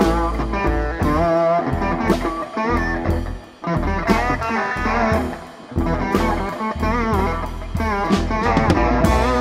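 Live blues band playing: a guitar lead with bent, wavering notes over upright bass and drums.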